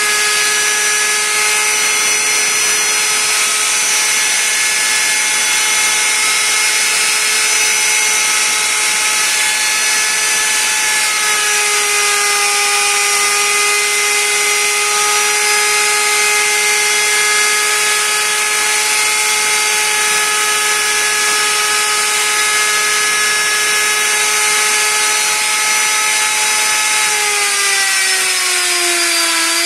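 A woodworking power tool running at high speed with a steady high whine over a hiss. Its pitch sags slightly about twelve seconds in and drops more clearly near the end before picking up again.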